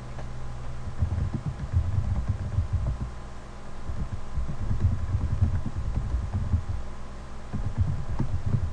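Keyboard typing heard mostly as dull low thumps through the desk, coming in three runs, over a steady electrical hum.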